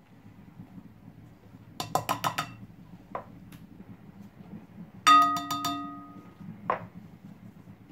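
Measuring cup clinking against a glass mixing bowl while icing sugar is tipped in: a quick rattle of about six clinks two seconds in, then one sharp knock about five seconds in that leaves the glass ringing for about a second, and a last tap shortly after.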